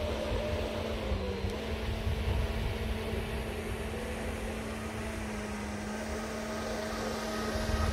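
Small motor of a radio-controlled model boat running with a steady whine, its pitch dipping briefly about a second in.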